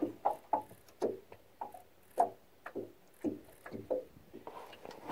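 Small waves lapping against the hull of a small fishing boat: short hollow knocks with a brief ring, irregular, about two a second.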